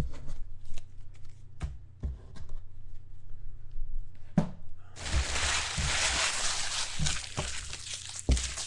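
Handling of trading cards and their packaging: scattered light clicks and taps. About five seconds in, a steady rustling hiss begins, with a few soft thumps.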